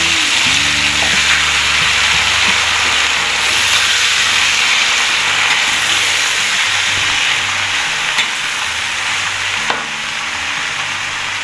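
Shredded cabbage and mustard greens frying in hot oil in a wok, a steady sizzle as a metal spatula stirs them. Near the end there are a couple of sharp clicks, the spatula knocking against the pan.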